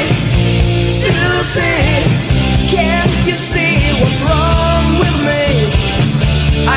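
Mid-1980s rock song played by a band of drums, bass, electric guitars and keyboards, with a lead melody line bending and wavering in pitch over a steady, loud backing.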